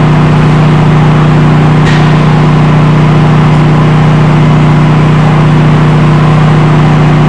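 Plasma cutter cutting steel: a loud, steady hum with a hissing rush of air over it, unchanging throughout.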